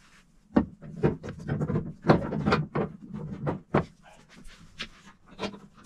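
Irregular metallic knocks and clicks as a horn on a welded steel bracket is handled, set in place and bolted into a car's engine bay.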